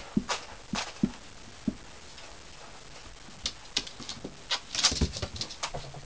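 Month-old Ocicat kittens scampering, their paws pattering and thudding on a wooden floor and against a carpeted cat tower as they play. A few scattered steps and thumps come in the first two seconds, then a busier flurry from about three and a half seconds in, with the loudest thump around five seconds.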